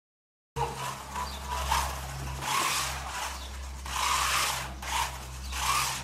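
Rough rubbing or scraping strokes, about five of them at uneven spacing, over a steady low hum; the sound cuts in abruptly about half a second in.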